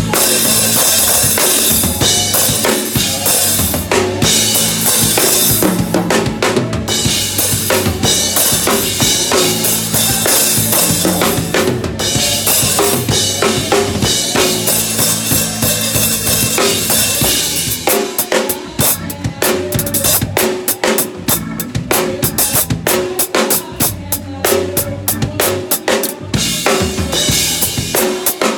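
Full drum kit played hard, with kick, snare and a heavy wash of crash and ride cymbals, along with a gospel backing track. After about eighteen seconds the cymbal wash thins into sparser, separate hits.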